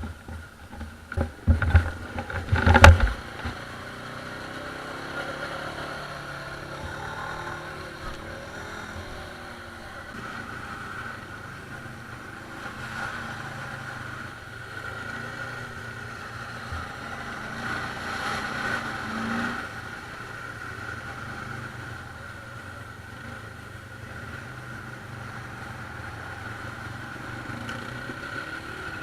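ATV engines running steadily, swelling slightly in the middle, with a few loud low thumps about one to three seconds in.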